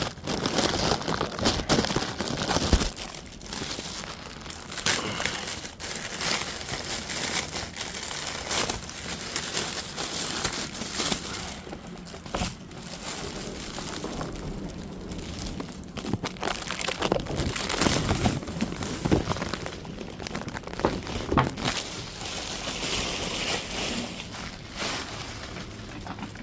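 Packaging crinkling and rustling as it is handled and pulled open around a hat carrying case, with irregular crackles and crunches throughout.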